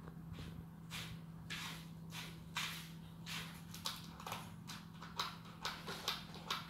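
Cat raking and scratching granular litter in a plastic litter tub with its front paw, covering its waste: a run of gritty scrapes about two a second, coming faster near the end.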